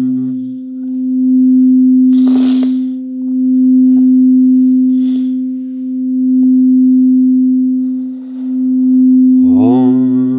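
Singing bowl ringing with one steady tone, its loudness swelling and fading every two to three seconds, with two brief soft hisses over it. A low chanting voice comes back in near the end.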